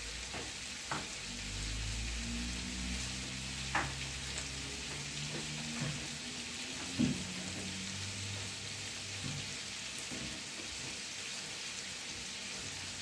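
Vegetables frying in oil in a pan: a steady sizzle, with a few light knocks and a low hum that comes in about a second in and dies away after about nine seconds.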